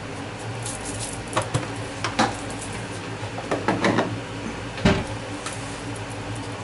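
Kitchen handling at the stove: a few short clinks and knocks of utensils and pans, the loudest about five seconds in, over a steady low hum and the faint sizzle of peas and diced ham cooking in a frying pan.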